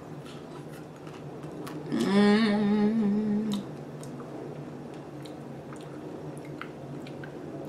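A woman chewing a chocolate-covered strawberry with small wet mouth clicks, then humming a loud, wavering 'mmm' for about a second and a half, starting about two seconds in.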